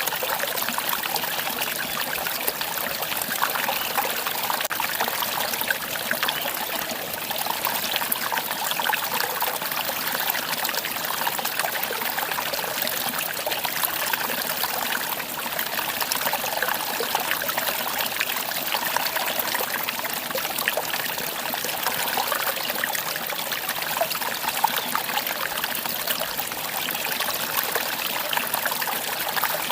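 Mountain stream running: a steady trickling rush of water.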